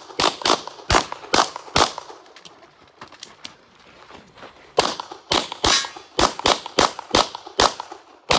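Rapid handgun fire from an IPSC Production-division pistol: a string of about five sharp shots, a pause of about three seconds, then a faster string of about ten shots, each shot followed by a short echo.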